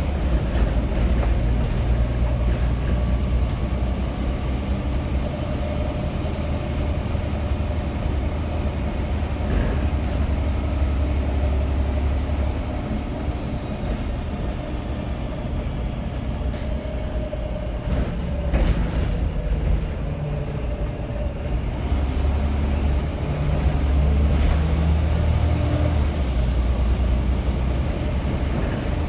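Volvo B7TL double-decker bus's turbocharged diesel engine running under hard acceleration, with a high turbo whistle riding over the engine drone. The whistle sinks lower and fades midway, then climbs to its highest pitch near the end before dropping away; a couple of sharp knocks come about two-thirds through.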